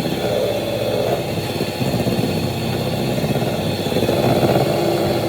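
Electric mixer running steadily at speed, beating a batter mixture that is not yet stiff enough to hold peaks.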